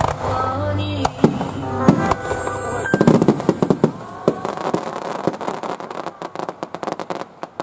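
Aerial fireworks shells bursting, with music playing during the first few seconds. About three seconds in the music gives way to a dense crackle of many rapid pops from crackling stars, which thins out and fades near the end.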